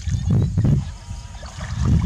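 Water sloshing and splashing as someone wades and moves through shallow pond water. The splashing eases off about a second in and picks up again near the end.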